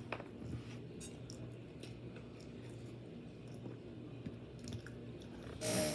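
A person chewing food with soft, wet mouth clicks. A louder burst of noise comes just before the end.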